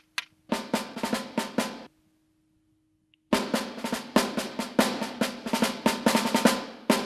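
Toy drum beaten fast with two sticks: a short rapid burst of strokes, a pause of about a second and a half, then a longer, denser run of quick beats from about three seconds in.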